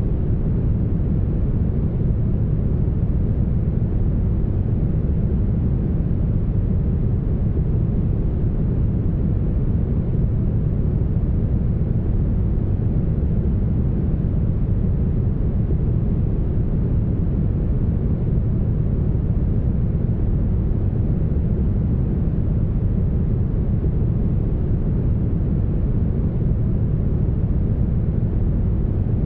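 Heavily smoothed brown noise: a steady, deep, even noise with most of its weight in the low end, little in the mids and nothing in the highs.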